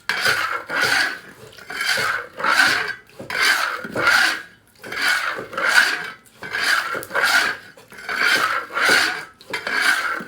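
Rhythmic rasping scrapes in a kitchen, a steady run of even strokes at about three every two seconds.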